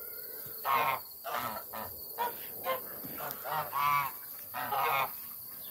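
A flock of domestic geese honking, a run of separate calls in quick succession, the loudest about a second in and again near the four- and five-second marks.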